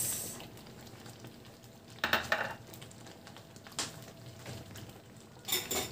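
Green peas poured into a pan of simmering thick stew, a brief rush at the start. Then a few sharp clinks and scrapes of a utensil against the dishes over a faint, steady simmer.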